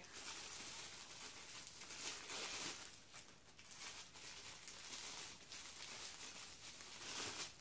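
Faint, continuous crinkling and rustling of shiny wrapping as small figurines are unwrapped by hand.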